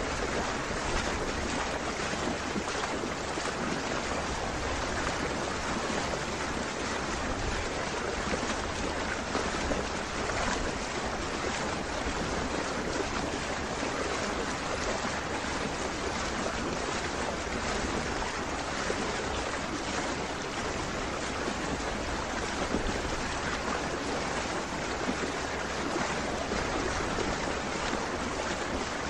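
Steady rushing wash of lake water past a moving boat, mixed with wind on the microphone.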